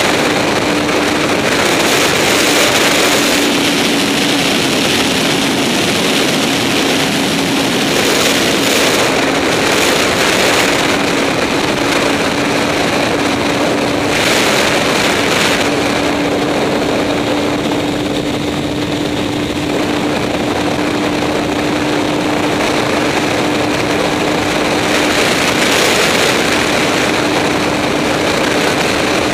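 Honda CBR954RR's inline-four engine running at steady high revs at highway speed, mixed with heavy wind rush on the bike-mounted microphone.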